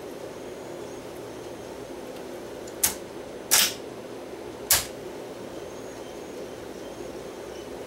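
Technics RS-M45 cassette deck's transport rewinding a tape, a steady whir, its idler freshly treated with rubber renewer. Three sharp clicks come a little under a second apart in the middle.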